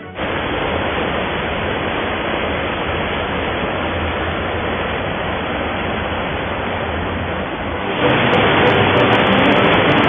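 Fast white-water rapids rushing through a narrow rock channel: a dense, steady rush of water. It gets louder about eight seconds in.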